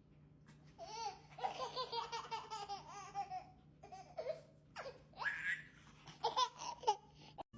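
A baby laughing: high-pitched giggles in a quick run of pulses, then several separate squealing laughs.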